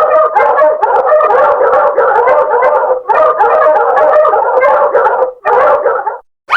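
Loud cartoon sound effect: a dense, warbling, howl-like sound with quick repeated pulses. It breaks off briefly about three seconds in, resumes, and stops near the end.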